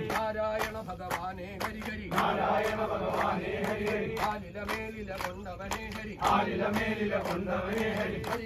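Men chanting together, over a sharp regular beat of about three strikes a second.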